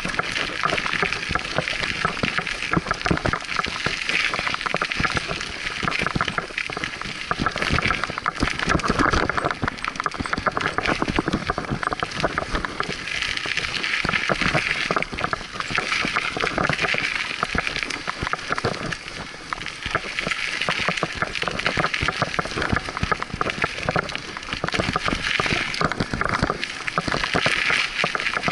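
Scott Aspect 35 hardtail mountain bike riding fast down a dirt singletrack: a constant loud rattle of the bike over the rough ground, with the tyres crunching on dirt and the occasional clack of small bumps.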